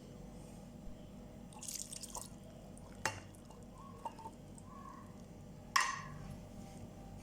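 Drips and small splashes of liquid in a kitchen, with a few sharp clicks and a louder click or knock near the end.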